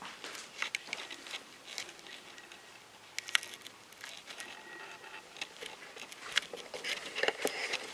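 Scattered light clicks and knocks of things being handled during kitchen cleaning, with a sharper knock about three and a half seconds in and more frequent clatter near the end.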